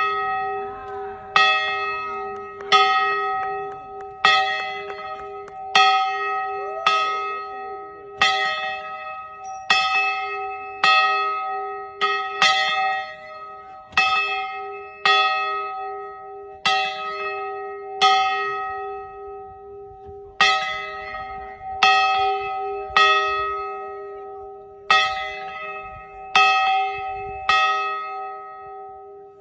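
A large victory bell being rung, its clapper striking it over and over in an uneven rhythm, roughly once every second or so. Each stroke rings on under the next, and there is a short pause about two-thirds of the way through.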